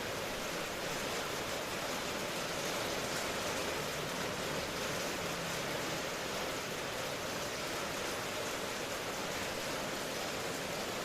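Steady rain falling, an even hiss with no thunder or single drops standing out.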